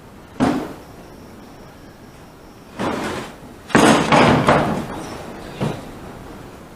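Loose wooden boat-interior panels being handled and knocked against each other: a single sharp knock, a short rough shuffle about three seconds in, a louder run of knocks and clatter around four seconds, and a last knock near the end.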